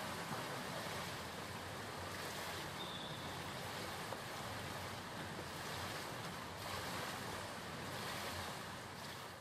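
Steady splashing and washing of water as a swimmer dolphin-kicks through a pool, with no distinct separate strokes.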